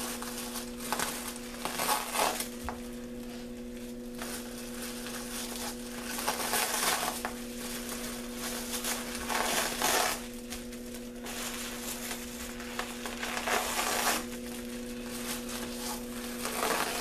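Crumpled clear plastic wrap pressed, dabbed and dragged over wet spray paint on a canvas, crinkling and crackling in irregular bursts, over a steady low hum.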